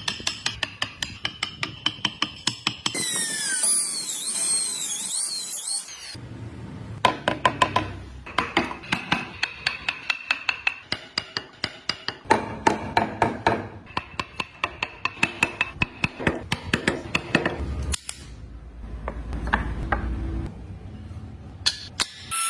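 Hand tool work on wood: runs of sharp hammer or mallet taps, several a second, in short stretches that change abruptly, with a spell of high squealing scraping about three seconds in.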